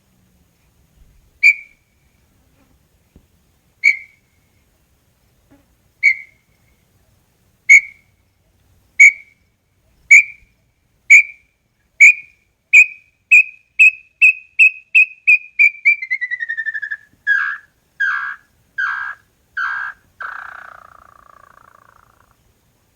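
Small-billed tinamou (inhambu-chororó) singing its full song: single whistled notes, widely spaced at first, that speed up into a fast run sliding down in pitch, then end with four louder, lower notes and a fading last note.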